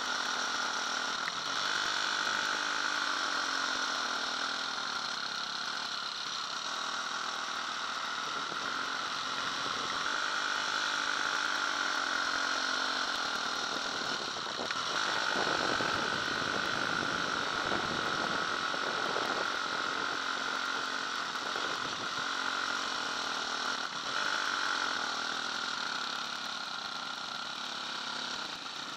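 Off-road motorcycle engine running under way, its revs rising and falling again and again, with a steady rush of wind over the microphone.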